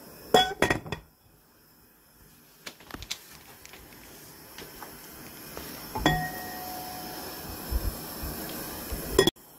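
Glass pot lid clinking against the rim of an enamel pot: a few sharp clinks in the first second, and about six seconds in a strike that rings on for over a second.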